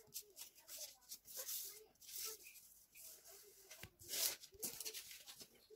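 A quick run of paper rustles and rubs as torn scrap paper is pressed flat and a glue stick is rubbed over it, with short swishes; the loudest is about four seconds in.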